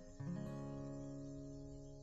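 Acoustic-guitar background music: a chord strummed about a fifth of a second in, left ringing and slowly fading.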